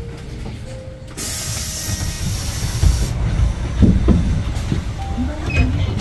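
Compressed air blowing off from a Hyundai New Super Aerocity city bus's pneumatic system: a loud hiss about a second in that lasts about two seconds and cuts off suddenly. Under it runs the bus's steady engine and road rumble, with a few low thumps after the hiss.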